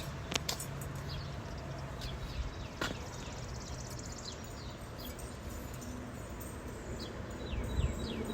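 Birds calling, short high chirps that slide downward, repeated now and then, over a steady low outdoor background, with a few sharp clicks in the first few seconds.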